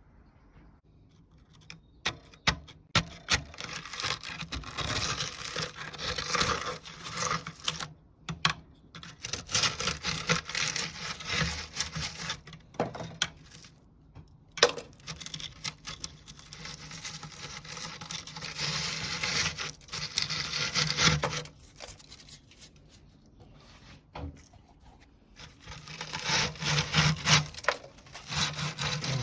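Bouts of scraping and rasping, broken by sharp knocks and clicks, as crumbly limescale is scraped and broken out of a San Marco two-group espresso machine's boiler. The scale is thick, the sign that the boiler has never been descaled.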